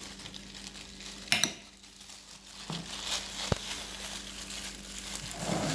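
Thin plastic bag crinkling as it is handled, with a couple of sharp clicks about a second and a half in.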